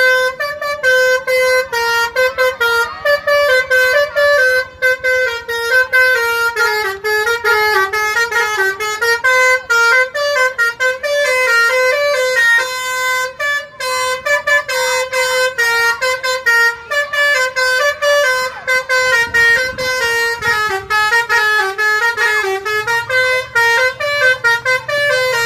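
Basuri telolet bus horn, a multi-trumpet musical air horn, playing a fast tune of short notes that step up and down in pitch without a break.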